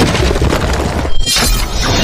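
Logo-intro sound effects: a loud shattering crash over a deep rumble, with a sharp hit about a second and a quarter in, then a high ringing shimmer as the intro music resolves.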